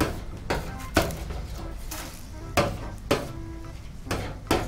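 Metal spatula scraping and knocking on a hot stainless steel table top used as a griddle, pushing the frying oil together, with a sizzle underneath. About seven sharp knocks come in irregular pairs and singles.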